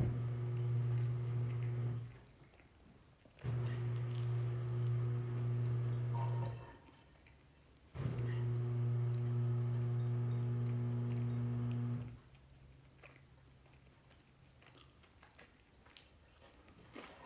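A steady low electric hum from a household appliance, switching on three times for three to four seconds each and cutting off abruptly in between.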